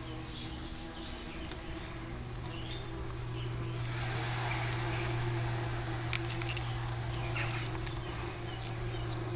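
Steady low buzzing of a bumblebee colony in its hive box. Faint high chirps and ticks sound above it, and a rush of hiss swells about four to six seconds in.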